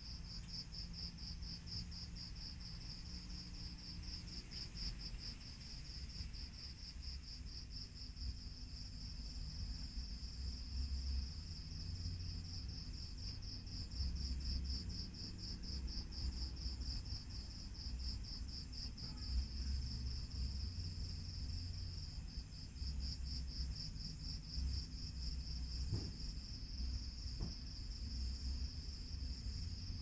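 Crickets chirping in a continuous high trill, pulsing fast and evenly, over a low rumble.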